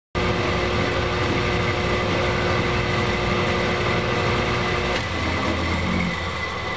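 Metal lathe running with a 1.5-inch drill bit boring into an aluminum workpiece: a steady machine drone with a high whine. It starts abruptly, and about five seconds in one of its tones drops out and the sound eases slightly.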